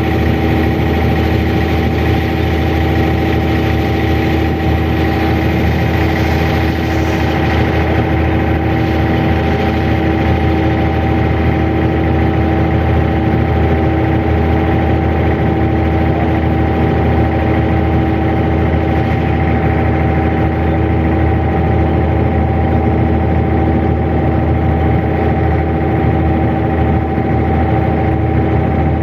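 Abra's inboard diesel engine running steadily, heard on board, with a constant low rumble and a steady hum.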